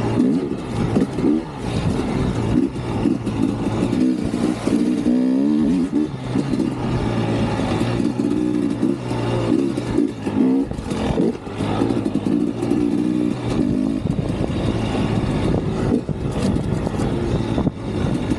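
Dirt bike engine running under load while riding, its pitch repeatedly rising and falling as the throttle opens and closes and the gears change.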